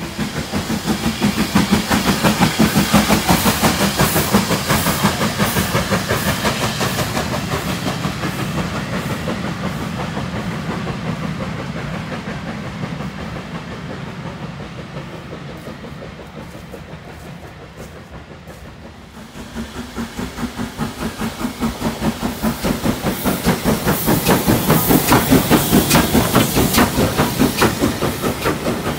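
A train running by with fast rhythmic beats and wheel clatter, loudest early on and fading away over the first twenty seconds. Then Southern Railway S15 class steam locomotive No. 847 approaches, its exhaust beats, steam hiss and rail clatter building to a peak near the end as it passes close by.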